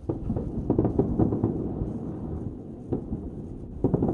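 Distant aerial fireworks bursting, heard as low booms and crackle: a quick run of bursts in the first second and a half, another about three seconds in, and more near the end.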